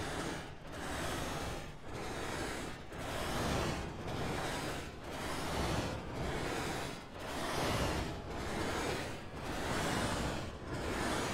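Hand sanding of a bare western red cedar strip kayak hull's interior with a curved foam sanding pad: rasping back-and-forth strokes, about one a second.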